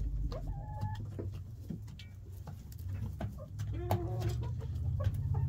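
Chickens clucking, with scattered short calls and a few light clicks over a low steady hum.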